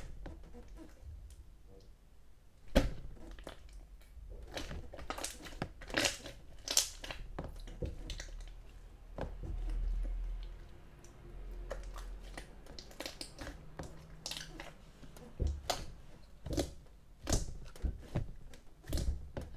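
Green pudding water slime being squished and pressed by hand, giving irregular sticky pops and crackles.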